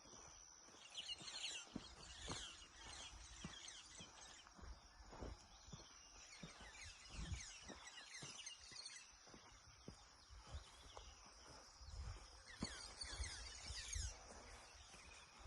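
Faint outdoor ambience: bird calls in quick falling chirps in three bouts, over a steady high-pitched buzz, with occasional low thumps.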